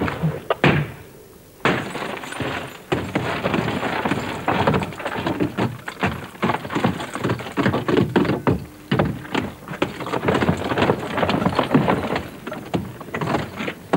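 Close, irregular clatter of knocks, thunks and rattles, mixed with scuffing steps and rustling, as people handle things at a wooden shed door. There is a short lull about a second in, then the clatter runs on densely.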